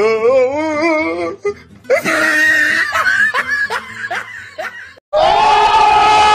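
Laughter mixed with music, opening with a wavering, wobbling pitched sound; about five seconds in it cuts off abruptly to a different, steadier sound.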